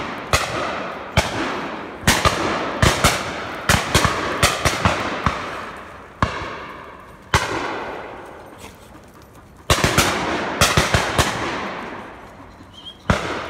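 Shotgun fire from a driven game shoot: many irregular shots, some in quick pairs, each fading slowly in a long echo.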